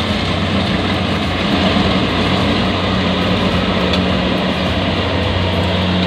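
Kubota DC-70 combine harvester running while it cuts and threshes rice. Its four-cylinder diesel engine gives a steady low hum under a loud, even noise from the machinery.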